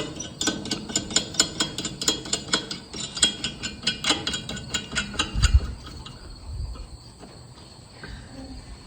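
Hand ratchet wrench clicking in quick, even strokes as a bolt on the combine's belt drive is turned, with a low thump about five and a half seconds in. The clicking then stops.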